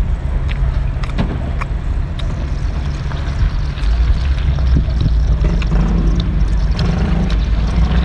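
A low, steady motor drone, louder from about halfway in, most likely a boat engine in the harbour. Scattered sharp clicks and cracks come over it as a cooked lobster's shell is pulled apart.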